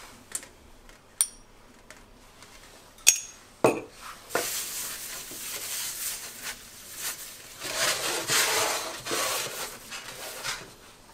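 A metal spoon clinks a few times against a small glass jar of cooking oil and the pan. Then, about four seconds in, a palm spreads the oil over a round aluminium baking tray, a steady swishing rub that lasts some six seconds.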